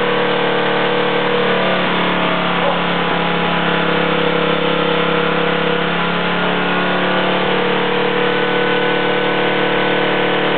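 8 hp Briggs and Stratton single-cylinder engine running steadily at a constant speed, its carburetor fed compressed air from an air-compressor hose through a bolt-on plate as a makeshift turbocharger.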